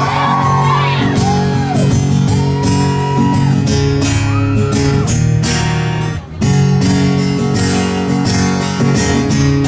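Acoustic guitar strummed steadily, the intro to a song, with a brief break about six seconds in. A few high-pitched cheers or shrieks from the crowd ring out over it in the first few seconds.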